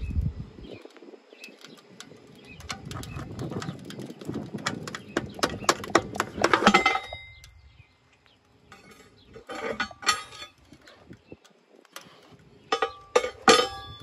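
Spells of sharp metallic clicking and clinking: a dense run that cuts off sharply about seven seconds in, then two shorter bursts, the last of them the loudest.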